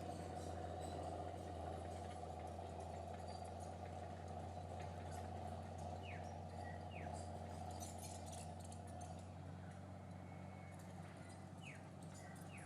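Cat Drott track loader's engine idling steadily at a low hum, with faint clicks over it. Short falling bird chirps come in a few times in the second half.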